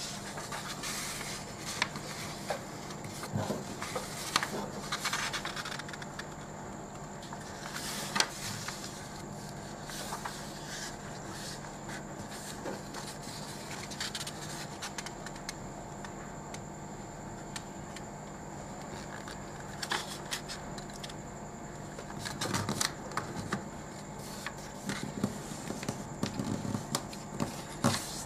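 A sheet of A4 paper being handled and folded on a tabletop: it rustles and slides, and fingers scrape along the crease in irregular strokes. A faint steady hum sits underneath.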